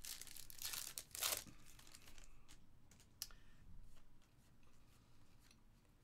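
A foil trading-card pack wrapper being torn open and crinkled, loudest in the first second and a half. Then the cards are handled and thumbed through, giving softer rustles and light clicks.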